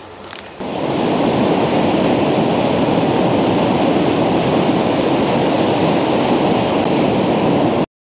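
Ocean waves breaking on a beach: a steady rush of surf that starts about half a second in and cuts off suddenly near the end. Most of this noise comes from air bubbles forming as the waves break.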